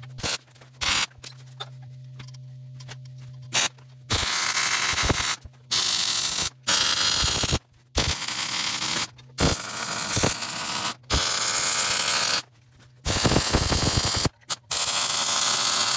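Low steady electrical hum with a few clicks, then, about four seconds in, a quick run of short bursts of harsh, hissing metalworking noise, each starting and stopping abruptly.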